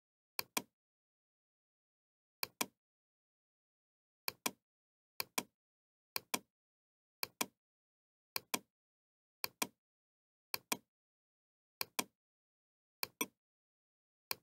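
A computer mouse button clicked about a dozen times, roughly once a second, with dead silence between. Each click is a sharp double tick: the press, then the release.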